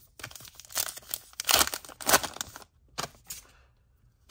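Foil trading-card pack wrapper being torn open and crumpled by hand: about three seconds of sharp crinkling and crackling, loudest in the middle, then it stops.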